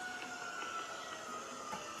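Outdoor tornado warning siren sounding a steady tone whose pitch slowly falls as it winds down.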